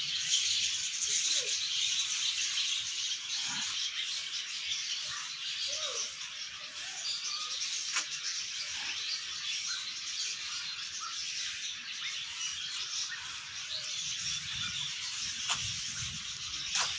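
Steady high chatter of many small caged birds chirping together, with scattered short separate calls and a couple of sharp clicks.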